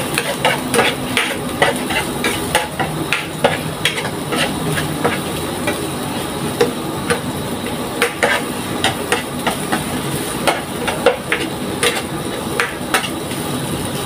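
A spatula stirring chopped garlic and chillies frying in oil in a nonstick frying pan: irregular knocks and scrapes against the pan, several a second, over a soft sizzle.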